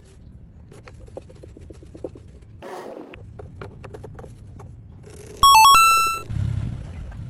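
Light scattered clicks and taps, then a loud, short electronic chime of a few stepped pitches about five and a half seconds in, followed by a brief low rumble.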